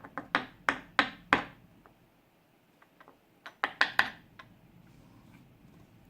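Quick sharp taps and knocks of a disassembled lock's core and parts against a hard surface while the lock is being gutted. About six taps in the first second and a half, then four more a little past the middle.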